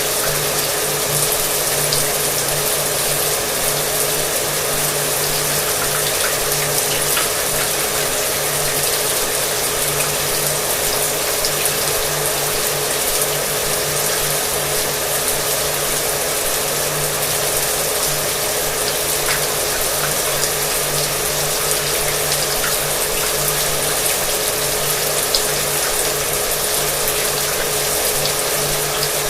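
Shower water running, mixed with a hair dryer running, which adds a steady motor hum under the hiss of the water.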